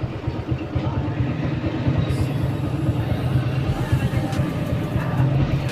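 Suzuki Raider J Pro motorcycle engine running through an aftermarket Apido V3 exhaust canister, with a deep, rapidly pulsing exhaust note that grows a little louder around four to five seconds in.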